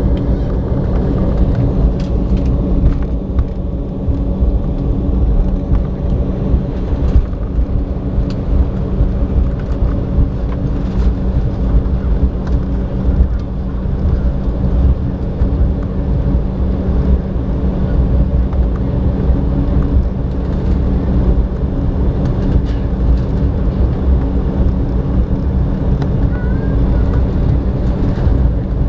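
Cabin noise of an Embraer 190 taxiing, its General Electric CF34-10E turbofans running at taxi power: a steady hum with a strong low rumble, heard from inside the cabin.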